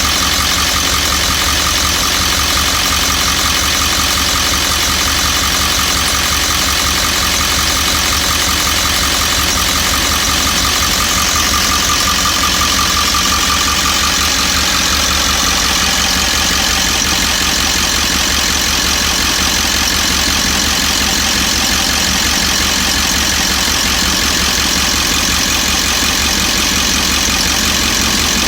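Ford 7.3 Power Stroke V8 turbodiesel idling steadily with a fast, regular knock running through it. The owner hears the knock once the engine is warm and cannot place it: it could be an injector, the 7.3's typical cackle, or something worse.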